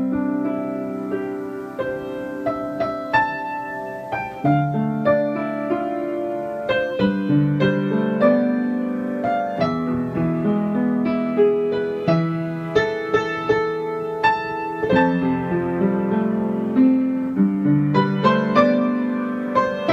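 Background piano music: a steady stream of notes and chords.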